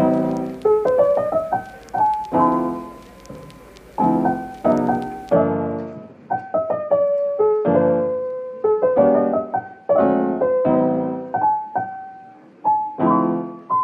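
Background piano music: soft chords and single notes struck about once or twice a second, each fading away. A faint hiss under it drops out about five seconds in.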